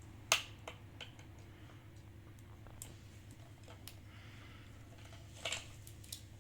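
Scattered sharp clicks and small taps from hands at work, the loudest a single click just after the start and a short cluster of clicks near the end, over a low steady hum.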